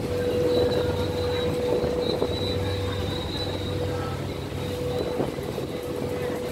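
Ferry engines running: a low steady rumble with a constant hum above it.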